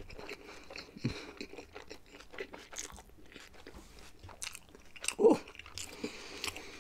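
Close-up chewing and biting, with irregular crunching and crackling of food in the mouth, probably Turkish pizza. About five seconds in comes one brief louder mouth noise, the loudest moment.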